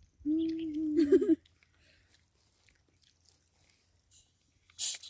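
A person's drawn-out hum, about a second long, held on one pitch and then wavering and breaking off; a short breathy hiss near the end.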